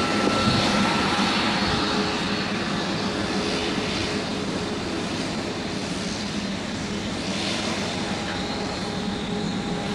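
Embraer A-29 Super Tucano's single turboprop engine and propeller running steadily as the aircraft taxis, a continuous propeller drone with a faint steady whine, slowly getting a little quieter.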